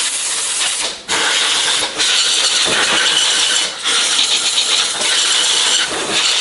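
Compressed-air blow gun with a long nozzle blasting air over a crankshaft's main bearing journals: a loud hiss broken by a few short pauses between blasts.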